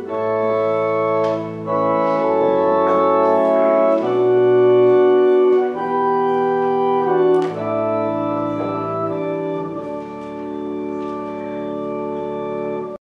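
Organ playing slow, held chords that change every second or so, cutting off abruptly at the end.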